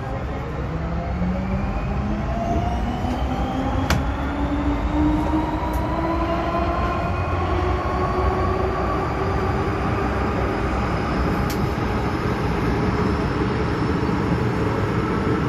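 MTR M-Train electric multiple unit accelerating away from a station, heard from inside the carriage: the traction motors whine in several tones that rise steadily in pitch over a steady wheel-and-track rumble, with a couple of sharp clicks along the way.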